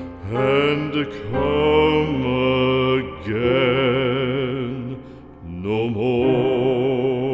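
Background music from a slow, solemn song: a voice holds long notes with vibrato in three unhurried phrases, with no words heard.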